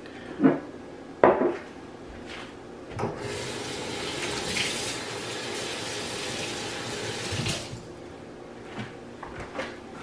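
Water running from a kitchen faucet into the sink for about four and a half seconds, starting about three seconds in. Two short knocks come before it, and a few light taps follow it.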